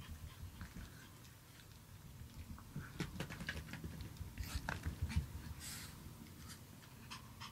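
Chihuahuas moving about on a rug: soft scuffing with irregular light paw taps and clicks, busiest around the middle.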